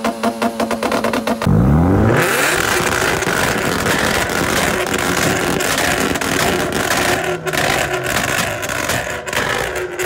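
Tuned car engine held on a two-step launch limiter, letting off rapid, evenly spaced pops. About a second and a half in it changes abruptly to the engine revving up, followed by a loud, dense roar of exhaust and noise.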